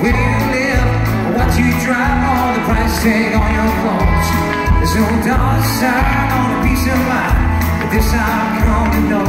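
Live country band playing: electric guitars and a steady pulsing bass beat, with singing over the top.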